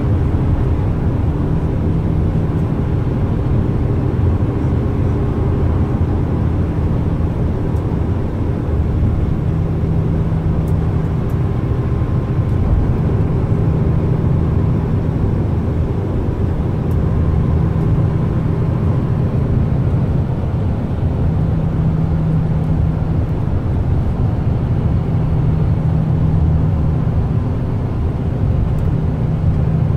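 Steady low rumble of a Yutong coach's engine and tyres, heard inside the passenger cabin while cruising on a motorway.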